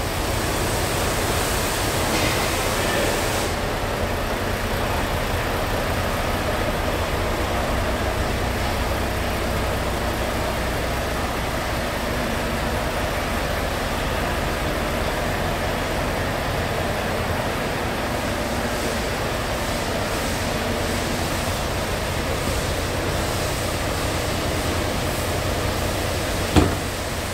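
Scania R tractor unit's diesel engine idling steadily, with a broad steady hiss over the low hum. A single sharp knock near the end.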